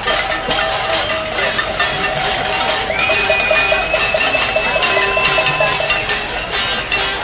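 A marching crowd banging metal in a dense, irregular clatter of strikes, with several long held tones sounding over it, a high one coming in about three seconds in.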